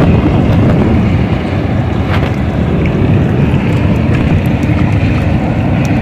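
Wind buffeting the microphone: a loud, steady low rumble with no breaks.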